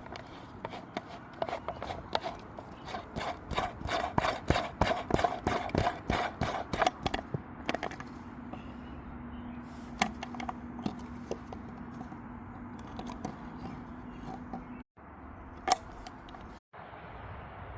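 Muffled gunshots fired through a 2-litre plastic soda-bottle silencer in a rapid string of sharp pops, then single sharp reports later on.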